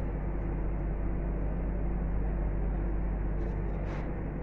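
Steady low room hum, an even machine drone with a constant low tone, and a few faint clicks near the end.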